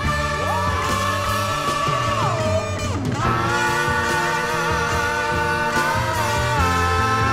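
Psychedelic rock music from a 1971 record: a held lead guitar note that bends down a couple of seconds in and climbs back up, over a bass line.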